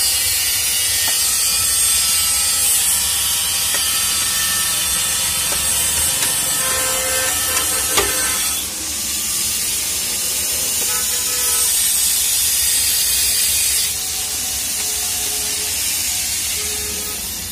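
Roadside street noise: a loud, steady hiss with traffic behind it. A sharp click comes about eight seconds in, and the hiss drops a little soon after and again near the end.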